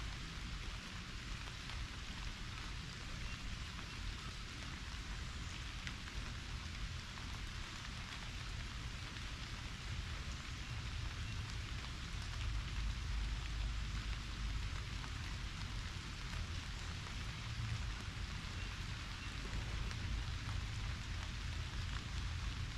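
Heavy rain pouring down, a steady hiss of falling drops, with a low rumble beneath that grows louder about halfway through.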